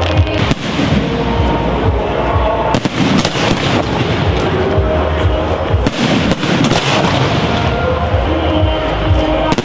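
Fireworks going off: a dense, irregular string of sharp bangs and crackles, one on top of another.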